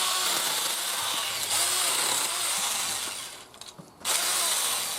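SeeSii PS600 electric pole saw running and cutting through tree branches. It starts suddenly and runs for about three seconds, stops, then runs again briefly about four seconds in.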